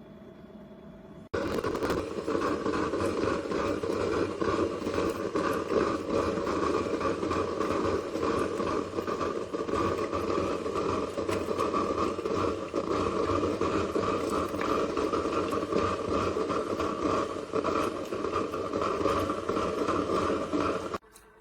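Built-in coffee grinder of a Cuisinart DGB-30 grind-and-brew coffee maker grinding whole beans, a loud steady grinding and rattling that starts suddenly just over a second in and cuts off suddenly near the end.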